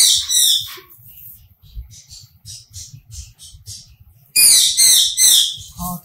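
Cockatiel giving loud screeching calls, two at the very start and a run of three about four seconds in. Between them, faint rustling of wood shavings being poured from a plastic bag into a wooden nest box.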